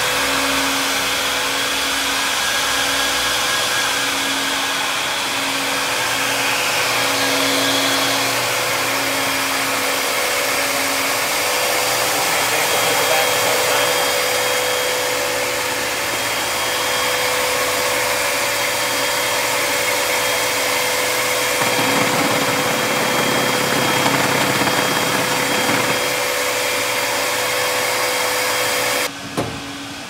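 Ruwac Patriot Pro industrial dust-extraction vacuum running steadily, a loud rush of air with a steady motor whine. The noise drops sharply about a second before the end.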